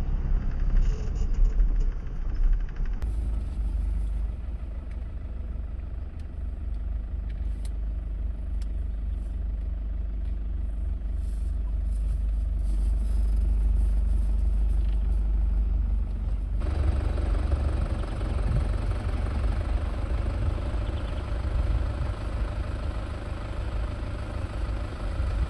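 A vehicle's engine running with a steady low rumble, changing abruptly twice.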